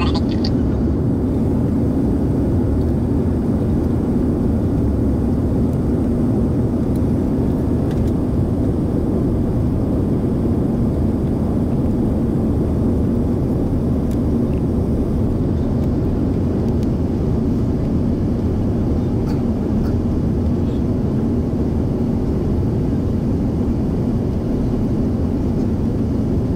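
Airbus A330-300 cabin noise heard from a window seat during descent: a steady low drone of engines and airflow over the fuselage.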